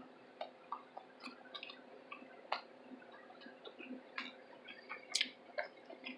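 Faint, irregular wet clicks and smacks of a mouth chewing close to the microphone, with a slightly louder smack about two and a half seconds in and another about five seconds in.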